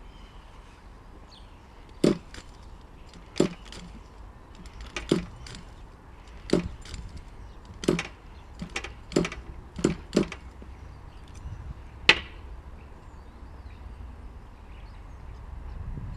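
A series of about ten sharp knocks and clicks, irregularly spaced a second or so apart, with the sharpest one near the end.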